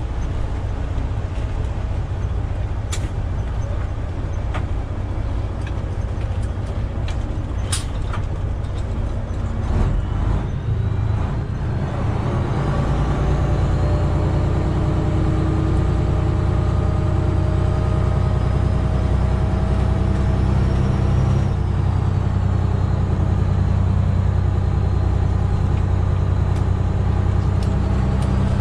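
Freightliner Classic XL semi truck heard from inside the cab on a wet road: steady tyre and road noise with a few sharp clicks. About twelve seconds in, the diesel engine grows louder and pulls steadily, with a faint high whine that slowly rises and then drops away.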